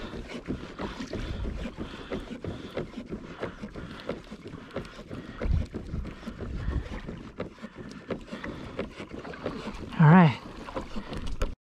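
Water lapping and slapping against a plastic kayak hull, with wind on the microphone and scattered clicks and knocks from handling a spinning rod and reel. About ten seconds in there is a short, loud, wavering pitched sound, and the sound cuts off suddenly just before the end.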